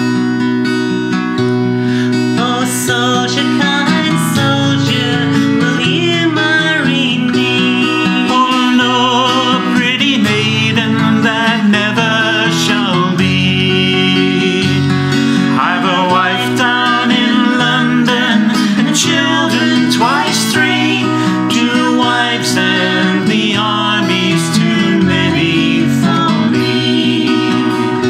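Acoustic guitar played steadily as accompaniment to a traditional folk song, with singing over it.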